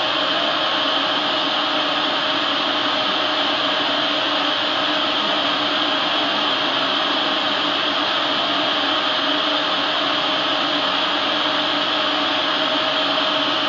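Epilog Mini 24 CO2 laser cutter running as it cuts 3 mm wood: a steady noise of its air and extraction fans with a constant hum, unchanging throughout.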